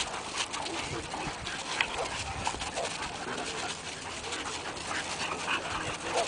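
Boxer dogs tussling over a stick: dog breathing and small vocal noises with paws scuffing on dirt, and no barking.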